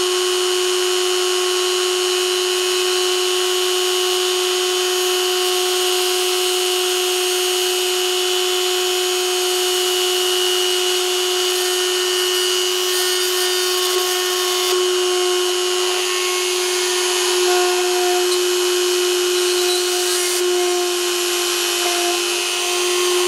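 Dremel rotary tool in a homemade drill press, running at a steady high whine while its 0.8 mm bit drills small holes through a printed circuit board. Its pitch sags slightly a few times near the end.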